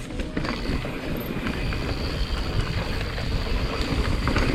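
Mountain bike riding over a dirt trail: steady tyre rumble and drivetrain and frame chatter, with wind on the microphone and scattered clicks from the bike.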